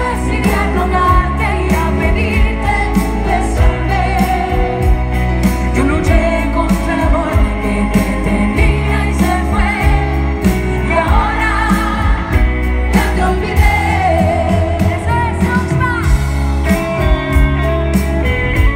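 Live pop ballad played loud: a woman singing lead over a full band with electric guitar, drums and heavy bass.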